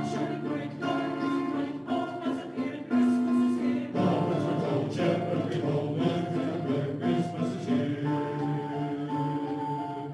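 Mixed choir of men and women singing, with grand piano accompaniment.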